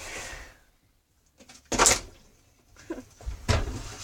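A plastic water bottle being flipped and hitting a hard surface: a loud sharp thud a little under two seconds in, and a second, softer knock about a second and a half later.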